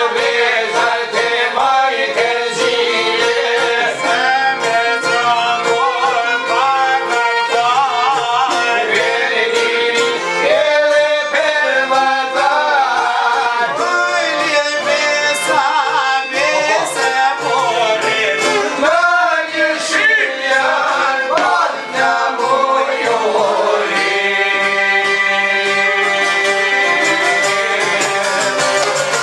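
Albanian folk song played live on long-necked plucked lutes, with a man singing in an ornamented, melismatic style over the strings. The singing stops a few seconds before the end and the plucked strings play on alone.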